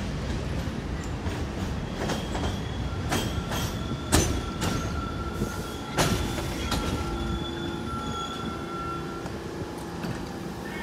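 R46 subway train rolling through the station, its wheels knocking sharply over rail joints, loudest about four and six seconds in. A steady high-pitched metal squeal from the wheels runs from about three seconds in until about nine seconds in.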